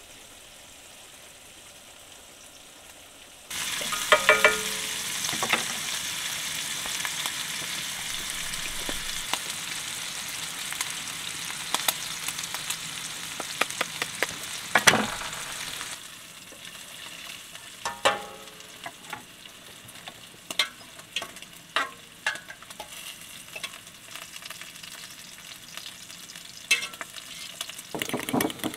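Food sizzling in a frying pan: a steady crackling sizzle starts a few seconds in and stops abruptly about halfway. After that comes a fork clicking and scraping against a ceramic bowl, whisking egg yolk and grated cheese for carbonara.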